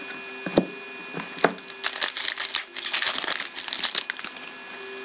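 Foil trading-card pack wrapper being torn open and crinkling in the hands, after two short sharp taps near the start.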